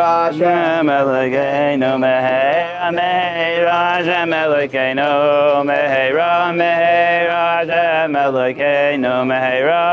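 Men's voices singing a slow, chant-like Jewish melody, the notes held long and gliding from one to the next.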